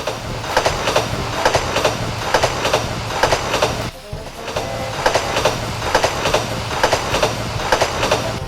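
Battery-powered Plarail toy trains running on plastic track: a steady motor whir with regular clicking a few times a second as the wheels pass over the rail joints. The clicking breaks off briefly about four seconds in.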